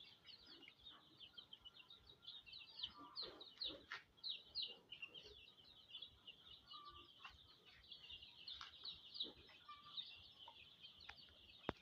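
A faint, continuous chorus of high cheeping from a flock of young ISA Brown pullets, many birds calling over one another with short quick peeps, plus a few scattered clicks.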